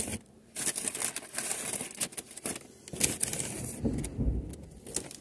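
Paper takeaway packaging crinkling and rustling in irregular bursts as it is handled, with a dull low bump about four seconds in.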